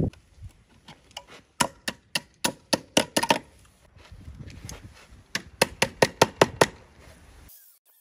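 Steel wire being pulled round a log and twisted tight with pliers: two runs of sharp clicks and scrapes, several a second, with rustling handling noise between them.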